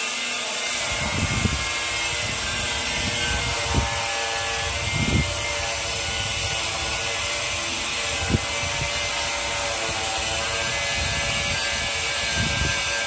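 Steel putty knife scraping wall putty across a concrete wall and off the mixing board, a steady rasping scrape. A few short low thumps come through at irregular moments.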